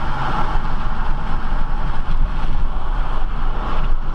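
Steady road and wind noise inside a car driving at freeway speed: a constant low rumble with a hiss over it.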